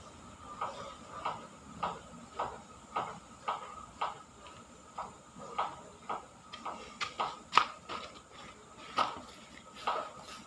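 A caged myna giving a long series of short, sharp calls, about two a second, with one louder call past the middle. A faint steady high tone runs behind.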